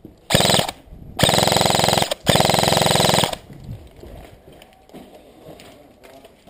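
Airsoft replica rifle firing on full auto in rapid, evenly paced shots: a short burst, then two longer bursts of about a second each, almost back to back.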